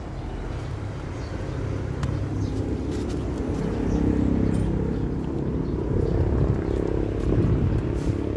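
DJI Mini 2 drone's propellers buzzing with a pitched hum that grows louder over the first few seconds as it comes in to land, over a low wind rumble on the microphone.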